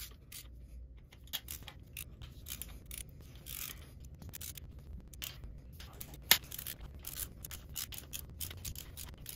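Light metal clicks and scrapes of a 3/16 hex key working loose the socket-head bolts of a Harley-Davidson Twin Cam's cam cover, with one sharper click a little past six seconds in.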